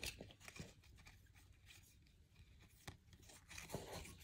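Near silence with a few faint clicks and rustles of trading cards being handled close to the microphone.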